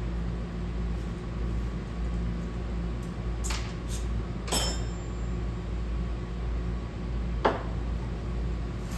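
Metal hand tools clicking and clinking against metal parts: a few sharp clicks, with a ringing clink about four and a half seconds in, over a steady low hum.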